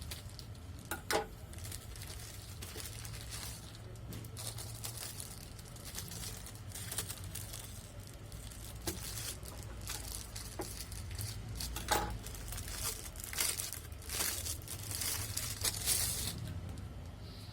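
Delivery packaging being torn open and crinkled by hand, in irregular rustles and rips with scattered clicks, busiest near the end.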